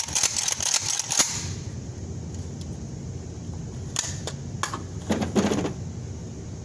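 Gunshots at an indoor shooting range: a quick run of sharp reports in the first second or so, then a few more scattered single reports and knocks about four to five and a half seconds in.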